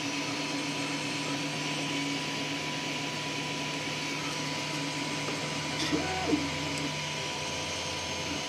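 Steady electrical machine hum with an even fan-like hiss, and two faint ticks about six seconds in.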